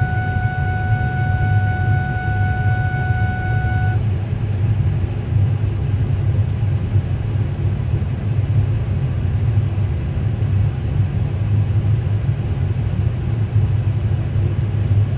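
Steady low rumble of a car driving, heard from inside the cabin. A steady high tone sounds alongside it and stops about four seconds in.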